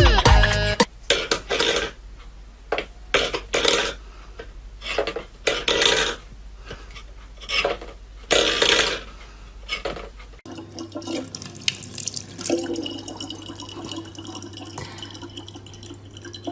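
A run of short scraping and clattering noises as a cat knocks a small metal object and a steel bowl about on a wooden floor. About ten seconds in it gives way to a thin stream of tap water running steadily into a plastic bottle, with a low hum under it.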